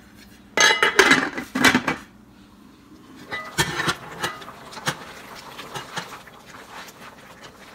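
Metal pot lid lifted off and set down with a clatter about a second in, followed by a wooden spoon stirring the steaming stew, with light scattered knocks against the pot.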